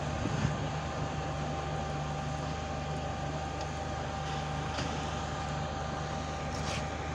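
Fire engine's engine and pump running steadily: a low drone with a thin, steady whine above it, under an even hiss of the hose spraying water onto the burning car.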